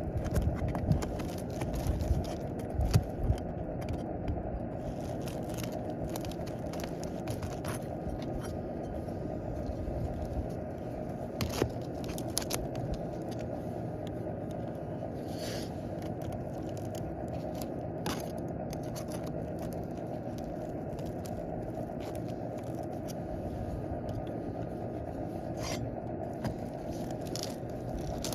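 Scraping and scattered clicks and knocks of asphalt shingles being worked loose and handled, with a few louder knocks in the first few seconds, over a steady low background rumble.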